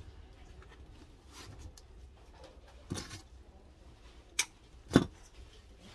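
Hands working flower stems into a garland on a cardboard-covered table: light rustling of stems and leaves, a short rustle about three seconds in, then a sharp click and, half a second later, a louder knock against the table.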